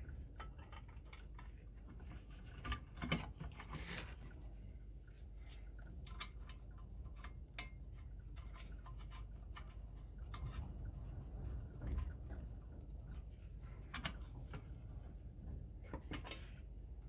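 Gloved hands handling a thick-walled metal first aid tin: scattered light clicks and taps of metal as the hinged lid is opened and later shut, the sharpest click about three seconds in.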